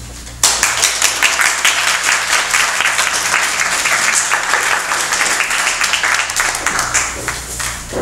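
Audience applauding, starting suddenly about half a second in and thinning out near the end.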